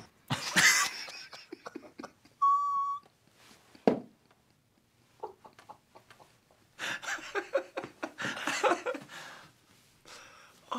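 Men laughing, in breathy stifled bursts, with a louder run of laughter in the second half. About two and a half seconds in, a brief steady high tone sounds for about half a second.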